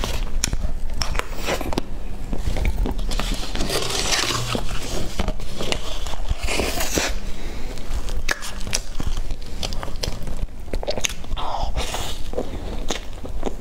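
Close-miked eating of soft frosted sponge cake from a metal spoon: chewing and wet mouth sounds, with many small sharp clicks, picked up by a clip-on microphone.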